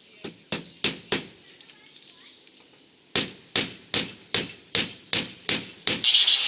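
Hammer blows fixing wire mesh to the coop frame: four quick strikes, a pause, then eight steady strikes about two and a half a second. Near the end a loud, steady high-pitched hiss starts.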